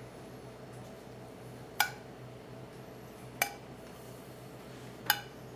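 Three light clinks of a metal utensil against a dish, spaced about a second and a half apart, over a low steady hum.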